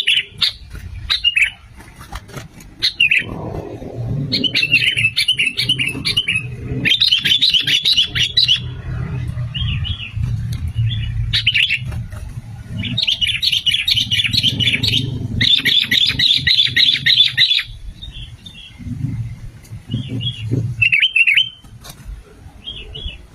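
Sooty-headed bulbuls (kutilang) singing. A few short calls give way to two long runs of rapid chirping phrases in the middle, then scattered calls near the end, over a low background rumble.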